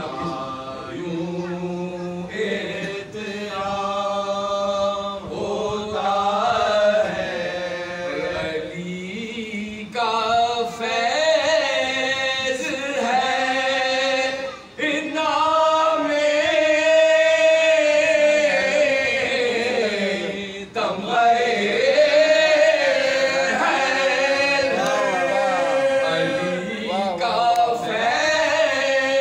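Soz khwani: men chanting an Urdu salam with no instruments. A lead voice sings long, wavering, ornamented lines while the others join in and hold a low note beneath. There are two brief dips near the middle.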